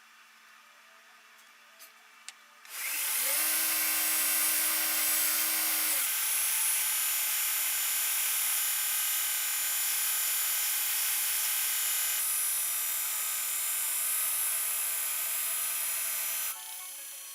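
An electric power tool switched on: its motor spins up with a short rising whine, then runs loud and steady with a strong high hiss for about fourteen seconds before it stops near the end.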